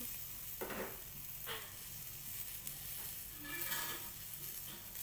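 Chicken piece searing in a hot wok, sizzling steadily with a couple of sharper crackles, as its blood juices cook off and the skin browns.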